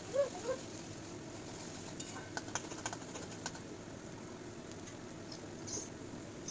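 Chopped onions frying in oil in a steel kadai, a low steady sizzle, with a few light clicks about two to three seconds in.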